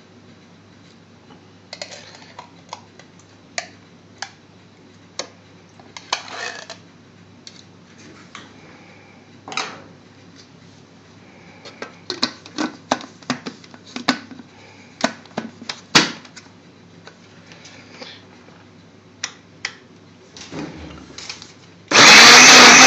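Light scattered clicks and knocks of a spoon and mango pieces against a blender jar as mango is added. Near the end an electric blender starts up loud and runs steadily, blending yogurt and mango for a lassi.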